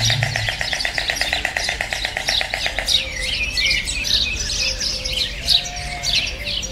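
Birds chirping: a fast, evenly pulsed trill for the first three seconds, then many short, high chirps and twitters.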